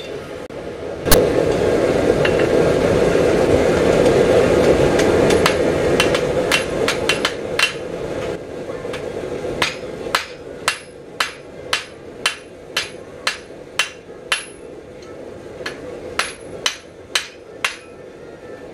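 Hand hammer striking red-hot steel on an anvil while drawing out the beak of a forged hummingbird. From about a second in, a loud steady noise runs for several seconds under scattered blows. In the second half the blows come evenly, about two a second, each ringing briefly.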